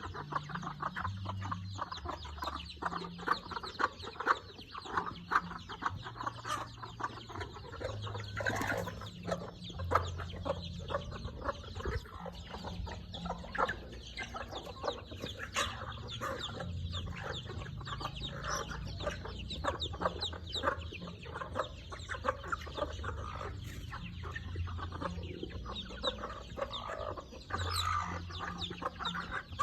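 Chickens clucking, many short calls overlapping with no pause.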